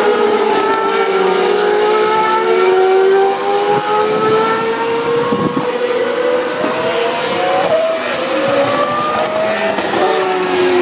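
Several GP2 race cars' Mecachrome V8 engines running at high revs at the same time, their notes overlapping. The pitch climbs and drops with each gear change, and near the end a car's note swells and falls as it passes.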